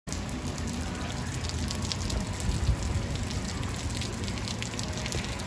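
Heavy rain falling on an asphalt parking lot: a steady hiss peppered with countless small drop ticks. A low rumble runs underneath and swells briefly about halfway through.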